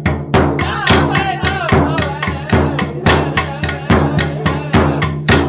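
Music with a steady drum beat, about four strokes a second, under held tones and a wavering melody line.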